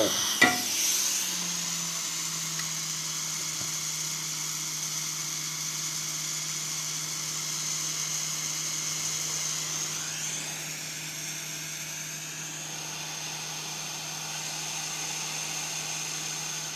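Hot air rework station blowing at reduced flow to reflow the solder pads of a replacement phone microphone: a steady airy hiss over a low, even hum. Two sharp clicks come just at the start.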